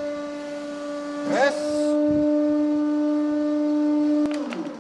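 Hydraulic press's pump running under load with a steady, even-pitched hum while the ram presses down on tightly packed toilet paper. It cuts off a little past four seconds in with a click.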